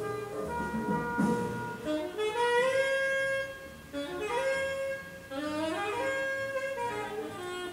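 Instrumental music: a melody of long held notes, several of them sliding upward in pitch.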